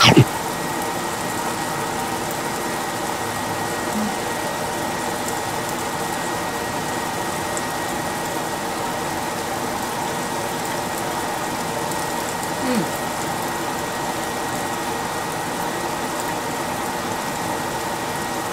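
A person bites into a tortilla wrap filled with lettuce, cucumber, mango and chicken right at the start, then chews, all under a steady mechanical hum. There is a short hummed "mm" about two thirds of the way through.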